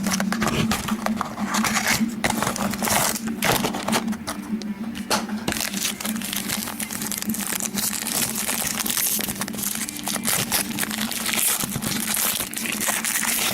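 Trading-card pack wrapper crinkling and tearing as a pack is opened, with the cards rustling and sliding as they are handled.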